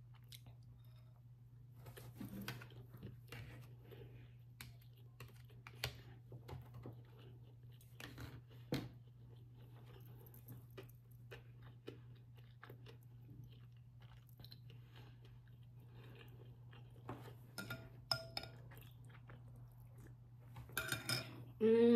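Close-up chewing of a forkful of sushi roll: soft, irregular mouth sounds and small wet clicks over a steady low hum. A brief louder sound comes near the end.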